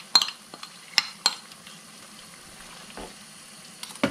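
Chicken, potatoes and onions in a frying pan simmering with a faint steady sizzle as the braise starts to cook, with a few sharp clicks of a utensil against the pan, more of them near the end as stirring begins.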